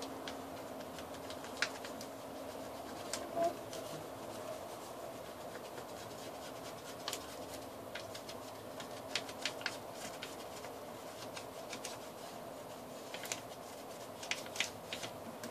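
Paper being handled: scattered light taps and rustles of paper pieces over a steady faint hum.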